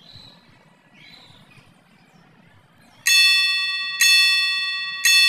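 Three electronic chime tones about a second apart, each starting sharply and ringing as it fades: an exercise app's countdown chime marking the last seconds of its timer. Before the first chime there is only a faint background hiss.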